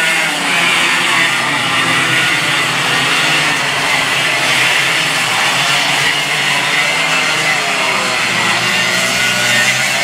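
Several two-stroke racing kart engines running at high revs as a pack of karts passes, their overlapping whines rising and falling in pitch.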